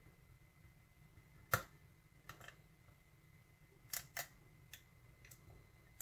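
Faint metallic clicks of a hook pick and tension wrench working in a five-pin Schlage pin-tumbler cylinder: one sharper click about a second and a half in, then several lighter clicks in pairs.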